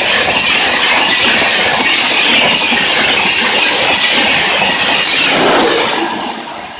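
LHB passenger coaches of the Rajdhani Express passing close by at about 130 km/h: a loud, steady rush of wheels on rail with clatter. It falls away about six seconds in as the last coach goes by.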